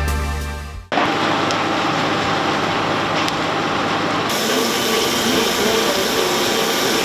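Electronic background music fades out and stops within the first second. Then comes a steady, even rushing noise from outdoor footage of the burning cathedral roof, with no single clear source. Its sound turns brighter about four seconds in, when the shot changes.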